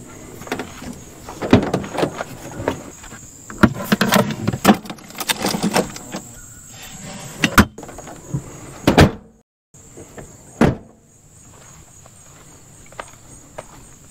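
Toyota Tacoma cab doors being opened and shut while gear is handled: a quick run of knocks and clunks for most of the first nine seconds, then one loud thud a little after ten seconds in.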